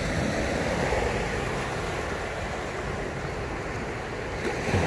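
Steady wash of ocean surf on a sandy beach, with wind on the microphone.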